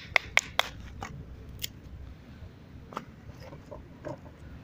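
Buschkraft Mitläufer bushcraft knife splitting a small stick of wood: a quick run of sharp cracks, about four a second, that stops about half a second in. A few faint knocks and rustles follow as the split pieces are handled.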